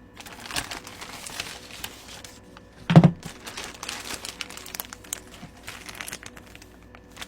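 A mail package being unwrapped by hand: packaging crinkling and rustling irregularly, with a loud thump about three seconds in.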